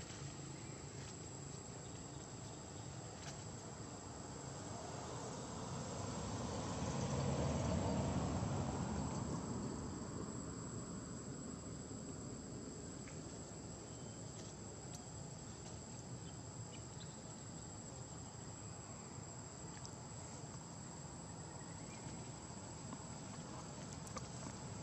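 Insects droning in one steady high-pitched tone. About six seconds in, a low rumble swells, peaks and fades away by about ten seconds.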